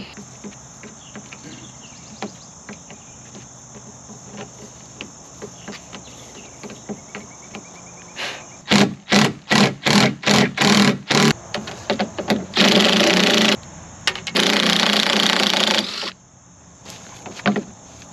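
Tools at work fitting a new point onto a combine corn header's snout: a quick run of about eight sharp knocks a little after the middle, then a power tool running in two loud bursts, the second about two seconds long.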